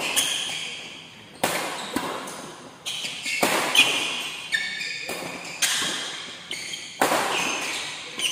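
Badminton rally: shuttlecock smacked back and forth by racquets, about ten sharp hits at uneven intervals of half a second to a second and a half, each ringing on in the echo of a large metal-walled hall.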